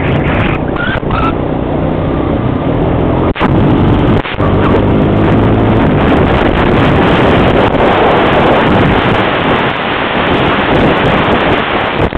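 Honda Rancher 350 ATV's single-cylinder four-stroke engine running under way on a dirt trail, with heavy wind buffeting on the microphone. The sound drops out briefly twice, a few seconds in.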